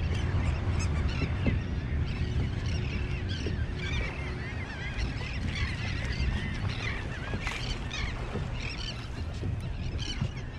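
A flock of birds calling, many short overlapping calls throughout, over a steady low rumble.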